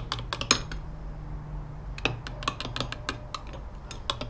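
A thin metal stirrer clinking against the sides of a glass measuring cup as dark liquid is stirred: a quick run of clinks, a pause of about a second, then another run of clinks.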